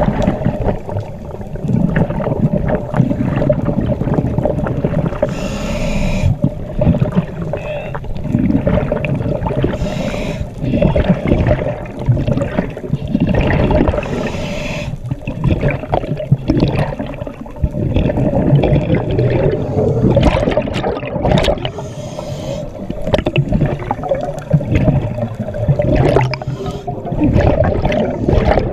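Underwater ambience heard through a diving camera: scuba regulator exhaust bubbles bursting out in hissing, gurgling gushes every few seconds, over a steady hum and a constant crackle of small clicks.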